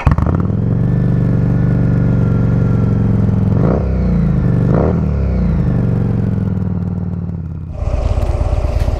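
Motorcycle engine idling, with two quick throttle blips a second apart. Near the end the sound cuts abruptly to a motorcycle running on the road, heard from the bike's own camera.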